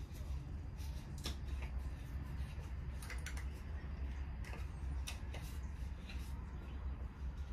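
A steady low hum with several light clicks and rustles scattered through it, like small objects being handled.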